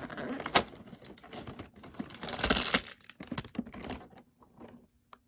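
Small plastic toy packaging handled up close: scattered sharp clicks and taps, the loudest about half a second in, with a short burst of crinkling a little past two seconds.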